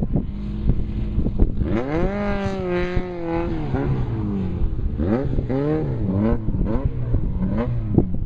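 Off-road race vehicle's engine revving: the pitch climbs and holds for about a second and a half, then drops, followed by several shorter revs up and down. A few sharp knocks come through, the loudest near the end.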